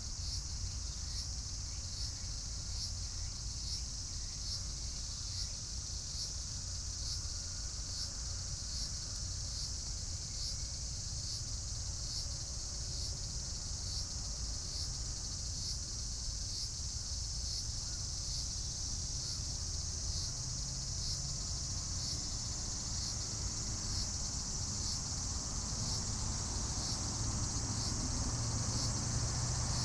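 Steady high-pitched chorus of insects, with a faint regular pulse about once a second, over a low rumble that grows louder near the end.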